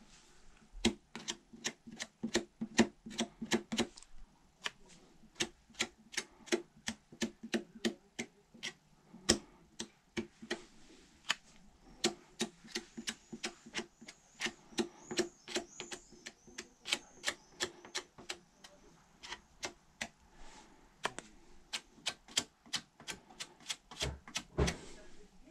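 A long, fast series of sharp clicks or light taps, about three to four a second, with short breaks in between.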